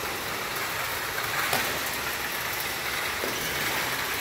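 Steady rushing noise, with a few faint sharp taps of badminton rackets striking a shuttlecock during a rally.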